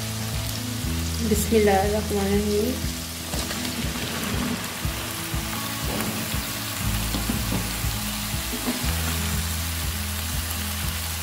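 Sliced onions sizzling in hot oil in a nonstick wok. A few seconds in there is a brief clatter as chunks of apple gourd (tinda) are tipped into the pan, and the frying carries on under them.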